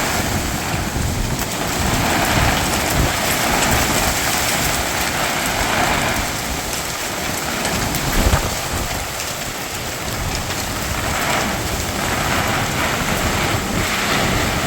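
Heavy rain pouring down on a tarp garage in a storm, with a single low thump about eight seconds in.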